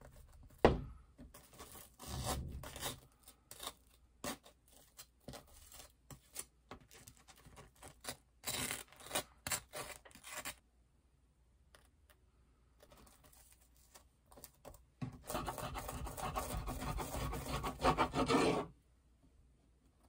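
A thump about a second in, then a knife scraping kaya jam across crisp toast in short, irregular strokes. Near the end a serrated bread knife saws through the stacked toast in a steady rasping cut lasting about three seconds.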